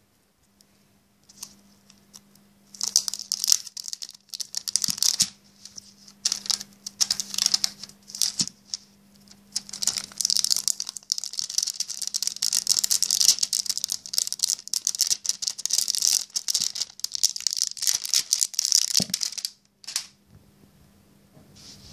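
Thin clear plastic film crinkling and rustling in a long string of short bursts as it is handled and peeled off a new phone, with a few light knocks; it stops shortly before the end.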